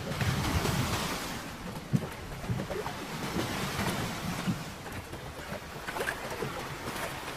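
Sea water sloshing against the side of a small open boat, with wind on the microphone, louder for the first second or so. A sharp knock about two seconds in, and a few lighter knocks after it.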